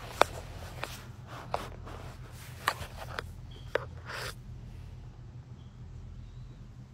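Handling noise from a phone held close: scattered light clicks and a short rustle about four seconds in, over a steady low hum.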